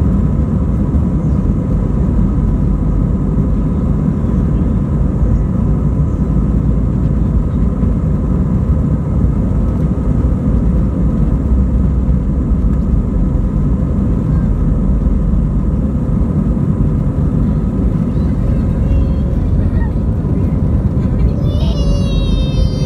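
Airbus A320 jet engines at takeoff thrust, heard from inside the cabin during the takeoff roll: a loud, steady rumble with faint steady whines on top. Near the end comes a brief high-pitched, wavering sound.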